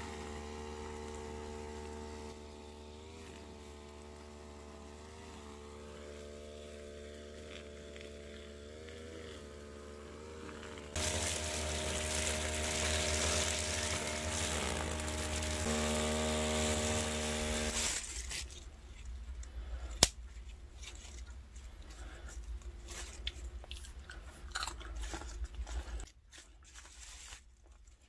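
Brush cutter engine running at a steady speed, then for several seconds much louder as its trimmer head cuts tall grass. After it stops, a stretch of irregular clicks and crackles follows, with one sharp snap.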